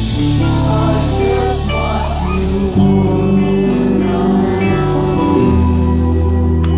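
Live amplified music from a band with bowed strings: long held string and guitar notes over low bass notes that change every second or two, with a sharp hit near the end.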